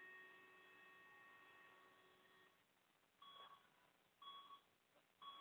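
Faint electronic tone from medical equipment holding steady, then cutting off about halfway through, followed by three short beeps about a second apart.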